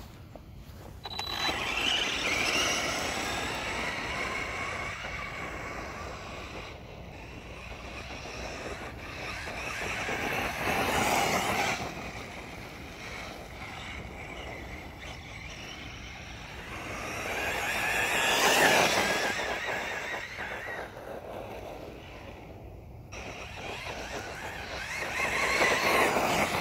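Arrma Senton BLX 3S short-course RC truck driving on a gravel track: brushless motor whine and tyre noise. The sound swells four times as the truck speeds past: about two seconds in, around eleven seconds, around eighteen seconds and near the end.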